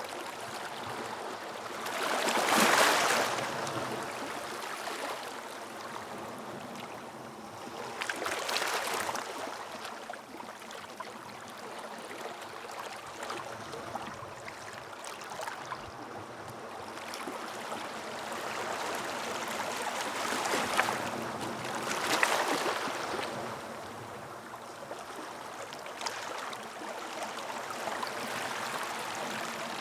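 Ocean waves washing onto a beach: a steady wash of water with louder surges that swell and fade every several seconds.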